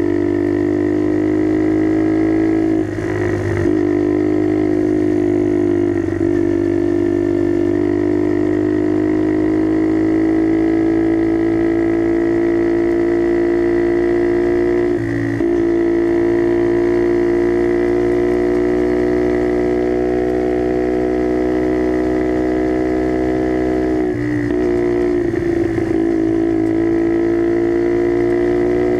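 Skyteam Dax motorcycle's single-cylinder engine running through an aftermarket carbon exhaust while riding, a steady drone at nearly constant pitch. The note dips briefly three times: about three seconds in, near the middle and near the end.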